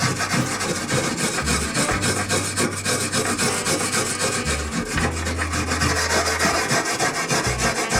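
Wire brush scrubbing the damaged metal wall inside a microwave oven cavity, a loud scratchy rasp in rapid back-and-forth strokes.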